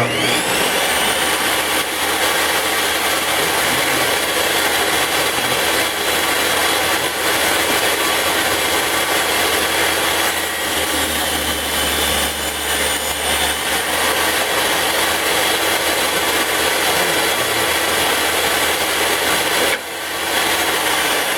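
Ryobi RTS21 portable table saw fitted with dado blades, running at full speed with a steady high whine and cutting a 1/4-inch dado in wood. It starts suddenly, and the load eases briefly near the end.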